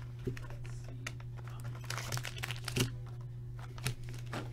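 A hockey-card pack's wrapper crinkling and tearing as it is opened by hand: a run of irregular crackles and small snaps, with a slightly louder snap about three seconds in and another near the end.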